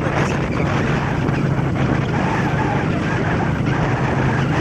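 Motorcycle engine running at a steady speed while riding along a gravel road, with a constant rush of wind noise over it.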